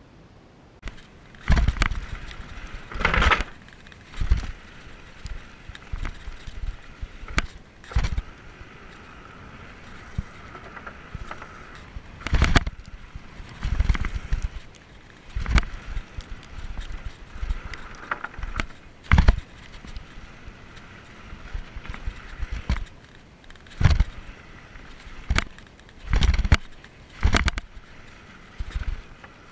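Mountain bike riding fast down a dirt trail, heard from a camera on the rider: irregular sharp knocks and clatters as the bike hits bumps, every second or two, over a steady high whir of the rolling bike.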